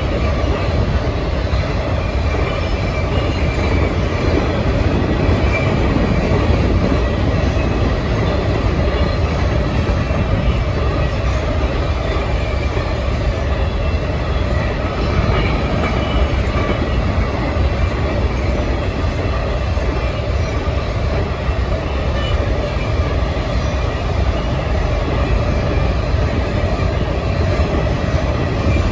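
Covered hopper cars of a long potash freight train rolling past, a steady rumble of steel wheels on the rails.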